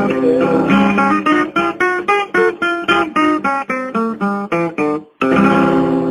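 Acoustic guitar music: quick, even strumming of chords, a sudden stop about five seconds in, then a last chord left ringing.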